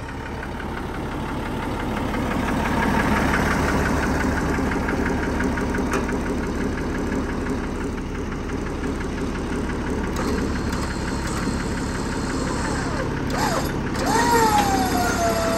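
Diesel engine of a Unimog 416 running steadily with a knocking beat, growing louder over the first few seconds as the Warn 8274 winch begins pulling the stuck tractor. Near the end a high whine swoops up and then holds, sliding slowly down in pitch.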